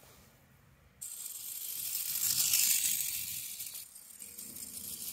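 Walther Stabil clockwork spring motor whirring with a high, buzzing hiss as it drives a small metal construction-set vehicle along a steel railway rail. The whirr starts suddenly about a second in, swells, dips briefly and picks up again.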